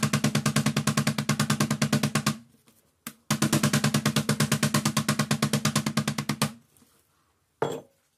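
Metal meat mallet pounding pork cutlets flat on a plastic cutting board in rapid, even blows. It comes in two long runs with a short pause between them, then a single short knock near the end.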